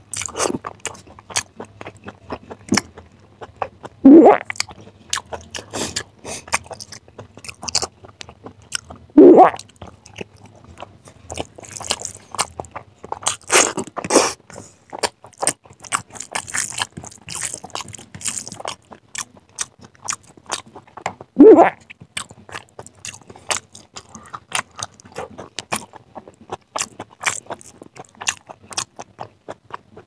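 Close-miked wet chewing and lip-smacking of a mouthful of rice and chicken curry eaten by hand, a steady stream of small clicks and squelches. Three louder, fuller wet mouth sounds stand out, about four, nine and twenty-one seconds in.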